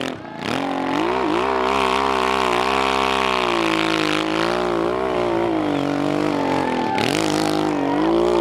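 Enduro dirt-bike engine revving hard under load on a steep hill climb, its pitch rising and falling with the throttle. The revs drop sharply right at the start and again about seven seconds in.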